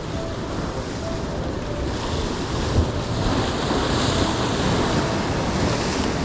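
Waves washing on the shore with wind buffeting the microphone; the rush of water builds about two seconds in and hisses loudest around the middle.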